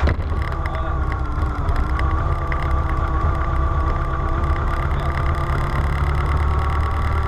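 An engine running steadily with a deep low hum and a steady higher whine over it.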